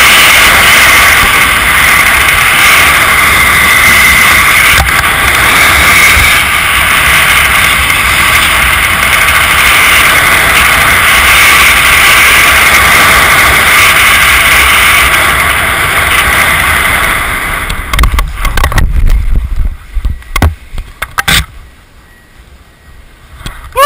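Loud, steady wind rushing over the camera's microphone as a skydiver glides under an open parachute canopy. About eighteen seconds in it drops away as he lands, with a few knocks as he touches down on the grass.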